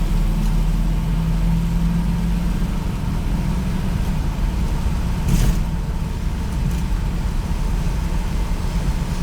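1964 Studebaker Avanti's V8 running steadily under way, a low engine drone with road rumble. There is one sharp knock about five and a half seconds in.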